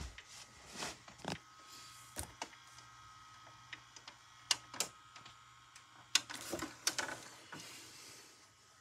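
Samsung DVD/VCR combo being stopped and set to rewind a VHS tape: sharp clicks from its front-panel buttons and tape mechanism, most of them between about four and seven seconds in, over a faint steady hum.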